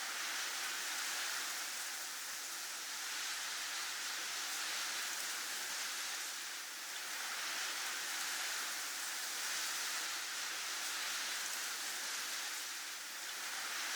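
Storm wind blowing as a steady high hiss that swells and eases slowly every few seconds.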